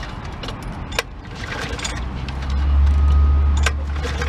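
Push lawn mower's small engine being started, with a low, steady rumble coming in about two seconds in.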